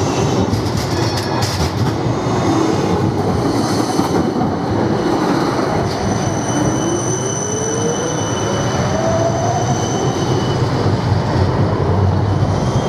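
Siemens Combino Plus low-floor trams running close by on street track: a steady rumble of steel wheels on rail, with a few clicks in the first couple of seconds. A high steady wheel squeal comes in about four seconds in and stops near ten seconds. Meanwhile an electric traction motor whine rises in pitch, as a tram accelerates.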